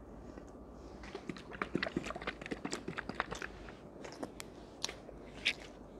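A person chewing crunchy food close to the microphone: many quick, irregular crunches, starting about a second in and thinning out near the end.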